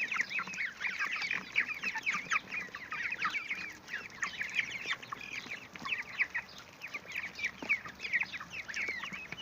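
A flock of three-week-old poultry, broiler chicks with goslings and ducklings, peeping continuously while they feed. Many short, high, overlapping chirps.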